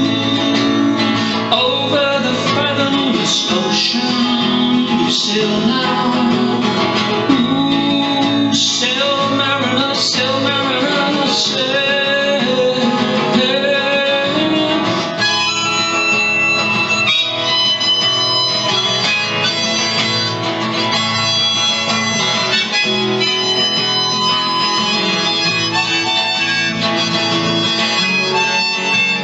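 Strummed acoustic guitar with a harmonica played in a neck holder, an instrumental break in a folk song; from about halfway the harmonica holds long steady notes.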